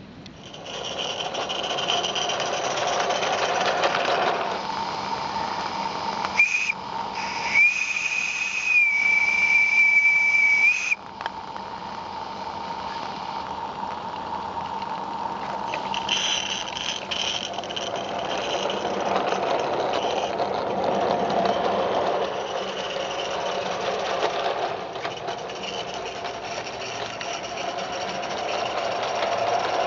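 Live-steam 0-6-0 Merlin Locomotive Works Major garden-railway locomotive hissing steam, then blowing its whistle: a short toot about six seconds in, then a longer steady whistle of about three seconds. The steam hiss carries on, rising and falling, as the train gets under way.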